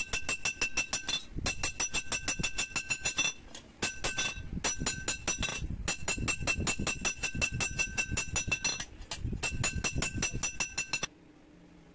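Small hammer tapping quickly on a chisel, cutting the fine serrated teeth into a sickle's steel edge by hand. The strikes come about eight a second, each ringing with the same bright metallic tone, in runs broken by short pauses, and stop about eleven seconds in.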